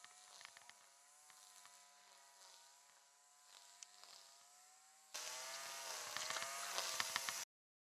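A motor's steady droning hum, its pitch wavering slightly, with scattered small clicks and knocks. About five seconds in it turns much louder, with quick splashy clatter as a bass is tossed back into the water, then it cuts off abruptly near the end.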